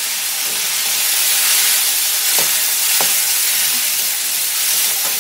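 Chopped tomatoes sizzling in hot mustard oil in a kadai while being stirred with a flat spatula: a steady frying hiss, with two light spatula scrapes about two and a half and three seconds in.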